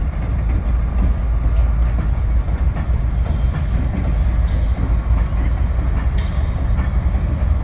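A multi-unit consist of Norfolk Southern diesel-electric locomotives rolling past close by, with a steady low engine and wheel rumble and a few faint clicks from the wheels on the rails.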